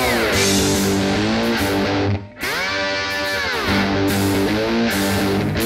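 Guitar-led background music with long held notes that bend down in pitch at their ends, with a brief drop-out about two seconds in.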